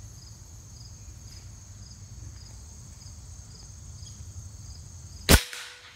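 A single shot from a Winchester Big Bore Model 70 .357 PCP air rifle a little over five seconds in: one sharp, loud report with a short tail. Before it, a faint regular chirping of insects, about two chirps a second.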